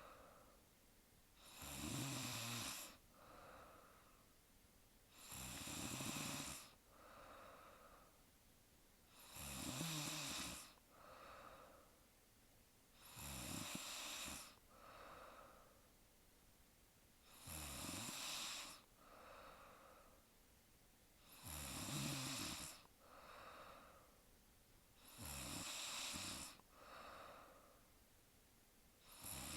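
A woman snoring in her sleep: a regular snore about every four seconds, each followed by a softer, shorter breath sound.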